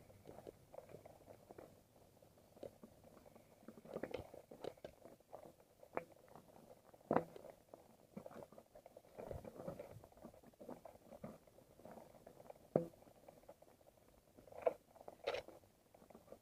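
Mountain bike riding over rough dirt singletrack: irregular clattering and knocking from the bike and tyres on the uneven ground, with a few sharper knocks, one standing out about seven seconds in.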